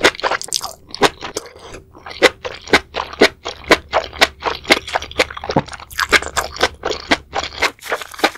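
Close-miked chewing of a bite of spicy seafood boil: a steady run of sharp chews, about two or three a second, with a brief pause just before two seconds in.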